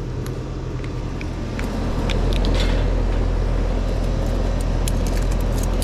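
Outdoor air-conditioning condenser unit running with a steady low hum that grows louder about two seconds in, with a few light clicks over it.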